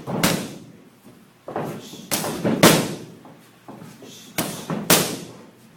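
Boxing punches landing on focus mitts in quick combinations, about seven sharp smacks at uneven spacing, each trailing off with a short echo.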